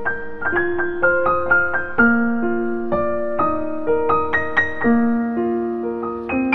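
Background piano music: a gentle melody of single notes struck in quick succession over held lower notes.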